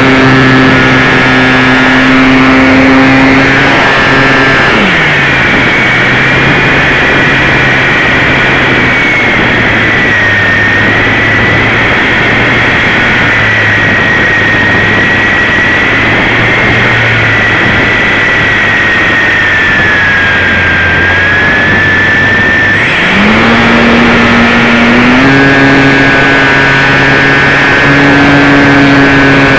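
RC plane's motor and propeller, very close to the microphone: a loud steady buzz that falls in pitch about four seconds in as the throttle is cut. While the plane glides it gives way to rushing air with a thin, wavering high whine. About 23 seconds in the buzz climbs back up in pitch as power is restored, then holds steady.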